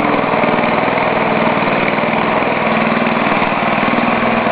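Ariens snowblower's single-cylinder engine running steadily at part throttle, still warming up after a cold start.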